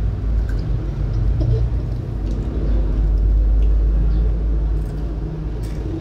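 A low rumble that swells about three seconds in and eases off near the end, with a few faint clicks over it.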